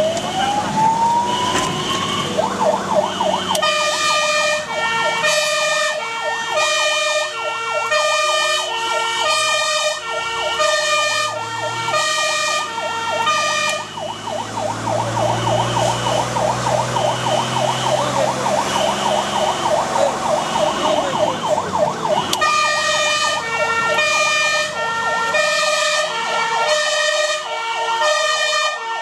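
Fire engine siren heard from inside the cab of a Magirus-Deutz 192D11 on an emergency run: a wail sweeps down and back up at the start, then gives way to a fast yelp, with a two-tone horn alternating over it. The two-tone drops out for a stretch in the middle while the truck's engine drone rises under acceleration, then comes back near the end.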